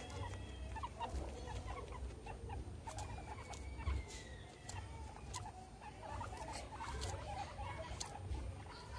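Guinea pigs making many short, soft squeaks in quick, uneven succession, mixed with small clicks and rustles.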